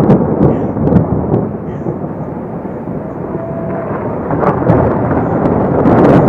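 Thunder: a sudden crack at the start, then a long rolling rumble that swells again near the end.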